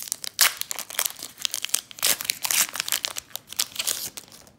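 Foil wrapper of a Pokémon Champions Path booster pack crinkling and tearing as it is ripped open by hand, a quick run of sharp crackles.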